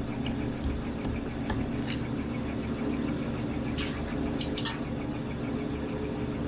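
Metal lathe running steadily, a constant mechanical hum, with a few light metallic clicks about four seconds in.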